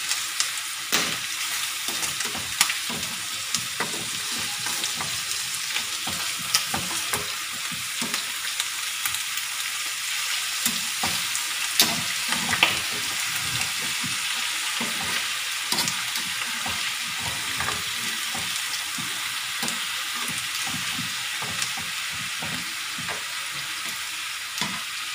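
Pork chunks sizzling steadily as they brown in their own rendered fat in a nonstick frying pan. Metal tongs turning the pieces make frequent clicks and scrapes against the pan.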